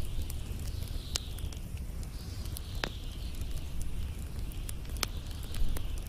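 Wood and pine-cone fire crackling, with scattered sharp pops (three louder ones about a second, three seconds and five seconds in) over a steady low rumble of the flames.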